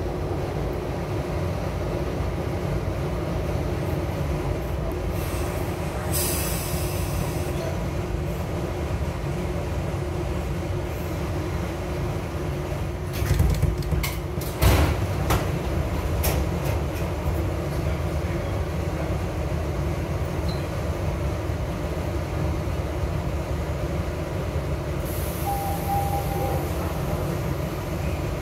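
SEPTA Broad Street Line subway train standing at a station, its equipment giving a steady hum. A short hiss of air comes about six seconds in, and a cluster of clanks and thumps comes around the middle. Another hiss with a brief beep comes near the end.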